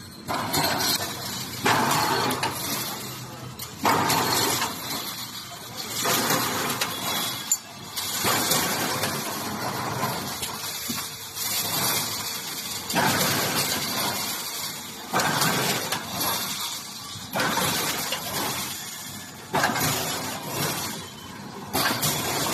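Brick force wire mesh welding machine running in its production cycle: a sudden clattering burst at each weld-and-pull stroke, repeating about every two seconds, with mechanical rattle in between.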